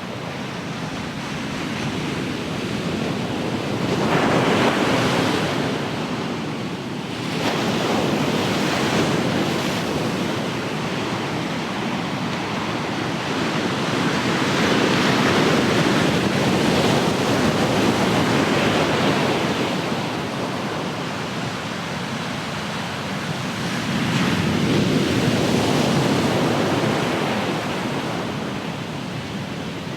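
Ocean surf: waves breaking and washing ashore in a steady rushing hiss that swells and ebbs every few seconds, with louder surges about four seconds in, around the middle, and near the end.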